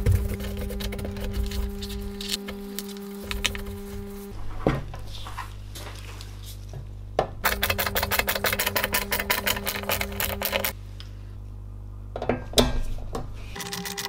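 Cloth wiping over a computer power supply's sheet-metal case, then a screwdriver driving screws into the case top: a rapid, even run of clicks for about three seconds midway, two sharp knocks about twelve seconds in, and the clicking starting again near the end.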